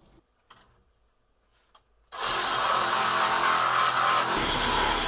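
Near silence, then about two seconds in a Ryobi cordless reciprocating saw starts abruptly and runs steadily, its blade cutting through the old wooden compression post.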